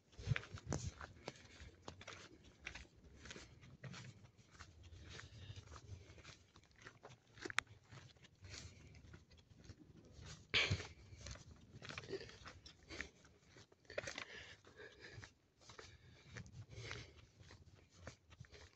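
Footsteps crunching on a dry dirt forest path at a walking pace, with a louder crunch about ten and a half seconds in.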